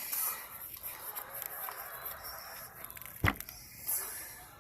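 Soft rustling and handling noise with a single thump a little over three seconds in.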